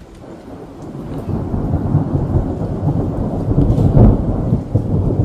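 Thunder rumbling after a nearby lightning flash: a deep rumble that swells from about a second in to its loudest about four seconds in, then eases slightly.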